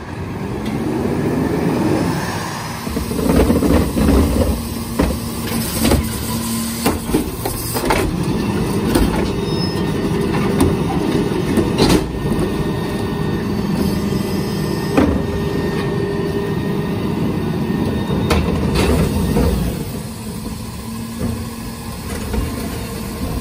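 New Way rear-loader garbage truck running with a steady hydraulic hum while its cart tipper lifts and dumps recycling carts into the hopper, with repeated knocks and clatter of carts and recyclables. The hum and knocking die down near the end as the truck pulls away.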